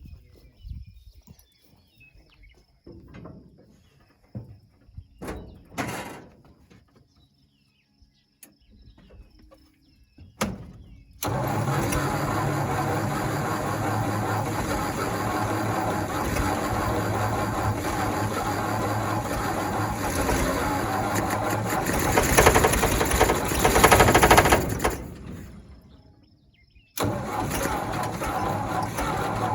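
The New Holland 1282 baler's four-cylinder gasoline engine, freshly re-timed and gravity-fed from a small tank, catches about a third of the way in and runs steadily. It gets louder for a moment, then dies away. It runs again near the end. A few clicks and knocks come before it starts.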